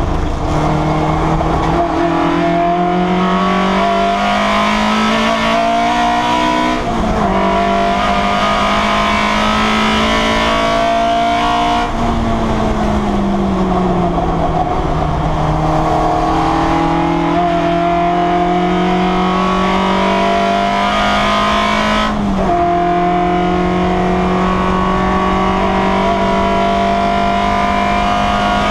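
Citroen Saxo race car's four-cylinder engine at high revs, heard from inside the stripped cabin, its pitch climbing slowly under full throttle. The pitch drops suddenly at gear changes about seven seconds in and again about 22 seconds in, and sags for a couple of seconds around 12 seconds in before climbing again.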